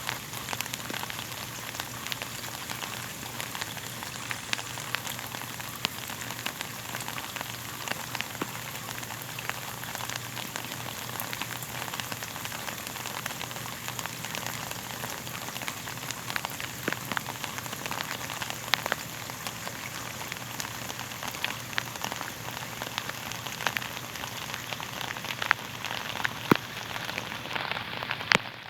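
Steady rain falling on a surface: an even hiss dotted with many sharp individual drop clicks, the highest part of the hiss dropping away right near the end.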